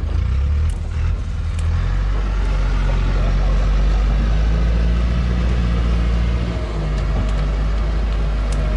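Engine of a truck loaded with acacia logs running hard in a steady drone, dipping briefly about two-thirds of the way through. The truck is bogged in mud up to its wheel rims.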